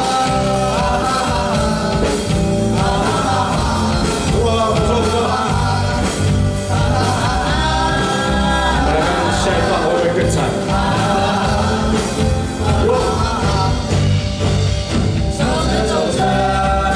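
A live band playing a rock song, with a lead singer over the instruments.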